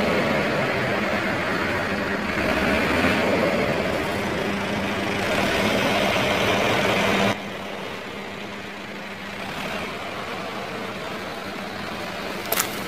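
A steady droning noise with a faint low hum drops abruptly to a quieter level about seven seconds in. A few sharp clicks come near the end.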